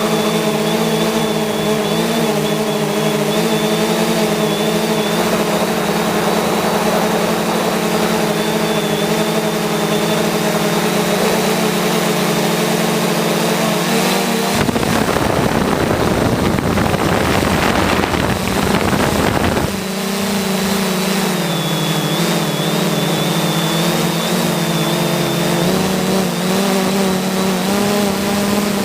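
Steady hum of an aircraft's motors and propellers in flight, holding an even pitch with a thin high whine above it. About halfway through, a rush of noise covers it for about five seconds.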